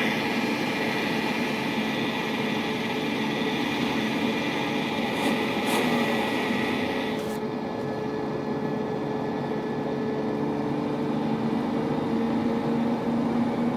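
BMW E36 323ti's 2.5-litre straight-six running with a steady drone and held tones, plus a high whine that cuts off about seven seconds in. This is the unexplained weird noise the owner is recording.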